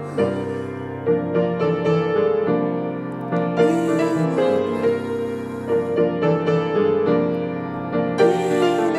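Grand piano playing a slow accompaniment, with a man's singing voice holding a note that bends in pitch about four seconds in and again near the end.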